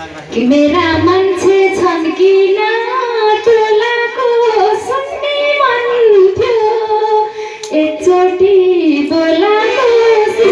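A woman singing a line of a Nepali dohori folk song, one continuous melody that rises, falls and wavers in pitch.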